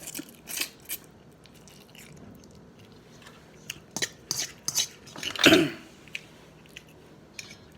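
Close-miked mouth sounds of a person eating Korean spicy cheese instant noodles: wet chewing with sharp smacking clicks, in a short cluster at the start and another from a little under four seconds in. There is one louder, longer sound about five and a half seconds in.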